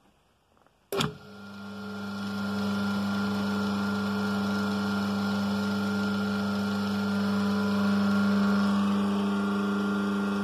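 Split-phase induction motor (no capacitor) switched on with a sharp click about a second in, running up to speed over a couple of seconds and then running with a steady electrical hum.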